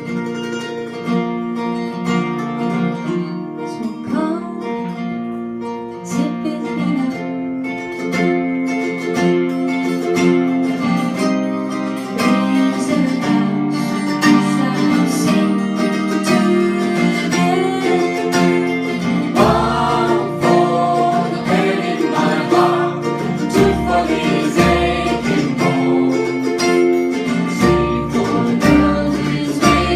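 Live acoustic band music: picked and strummed acoustic guitar with singing. The music grows fuller about twelve seconds in, and a low bass part comes in about two-thirds of the way through.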